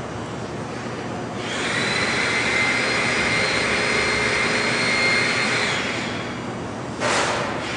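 Colton single-arm sigma-blade paste mixer running steadily on its electric motor and gear drive, with a high whine that comes up for a few seconds in the middle. A short burst of rushing noise comes near the end.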